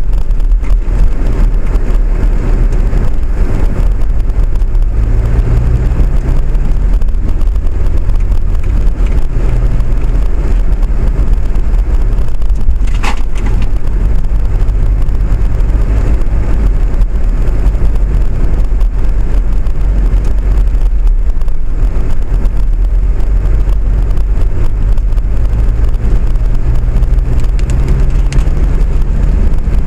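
Steady low rumble of a moving vehicle heard from inside. The motor's pitch climbs as it speeds up, at about five seconds in and again near the end. A brief high squeal comes about 13 seconds in.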